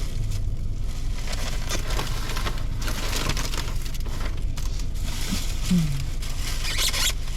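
Rustling and crinkling of food being handled and eaten close to the microphone, in irregular bursts, over a steady low hum; a brief low 'mm'-like vocal sound a little before the end.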